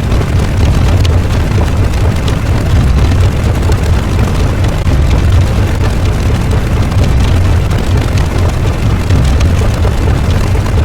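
A loud, continuous rumbling noise sound effect, heaviest in the deep bass, with a hiss spread over the higher pitches and no breaks.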